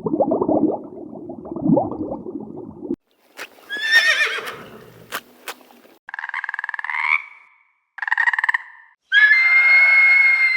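Horses neighing: a low rough rumble for the first three seconds, then a high whinny that falls in pitch, then three shorter quavering neighs, each cut off abruptly.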